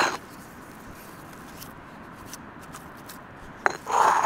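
Stone pestle mashing herb butter in a stone mortar: two short strokes of the pestle pushing and smearing the soft butter against the bowl, one at the very start and one near the end.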